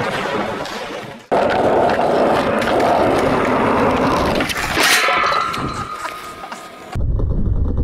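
Skateboard wheels rolling over a smooth concrete skatepark surface, a loud steady rumble. About five seconds in comes a sharp clack and a brief ringing scrape, then the rolling fades.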